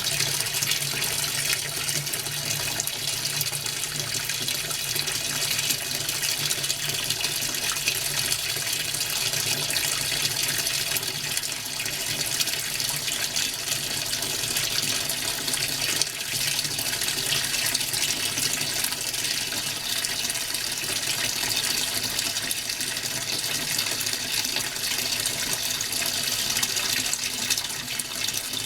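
Hitachi NW-42EF washing machine running, with a steady rush of water inside the tub over a low steady hum.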